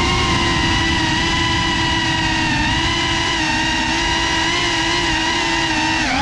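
Motors and propellers of a Geprc Cinelog35 cinewhoop FPV drone, heard from its onboard camera: a steady, loud whine with a slight wobble in pitch over the rush of the props as the drone flies low and slow, rising briefly near the end as it sets down.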